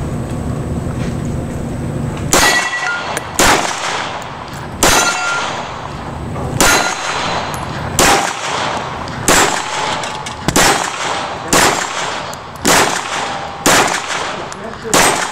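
Semi-automatic pistol firing about eleven single shots at an uneven pace of roughly one every second or so, starting about two seconds in. Several shots are followed by the short metallic ring of a steel target being hit.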